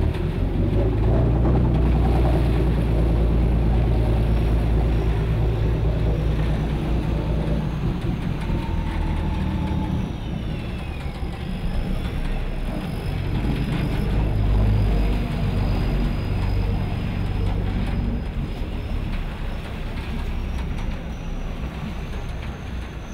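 Passenger shuttle boat's engine running hard as the boat makes a U-turn in midstream, a deep steady drone that eases off about nine seconds in and picks up again a few seconds later.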